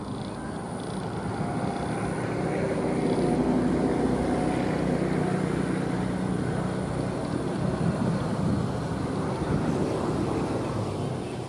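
Engine of a homemade three-wheeled scooter running as it drives across grass, getting louder a few seconds in and dropping off again near the end.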